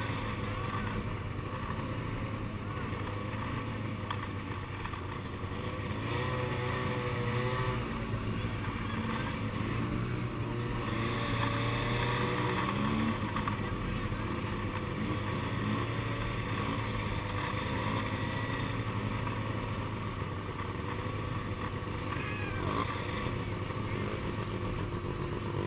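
Snowmobile engine running at low speed, a steady drone, with other vehicle engines rising in pitch as they pass now and then.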